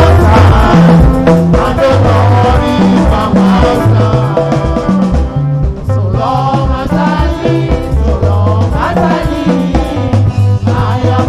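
Upbeat gospel music with a moving bass line, drums and singing voices, in a lively dance rhythm.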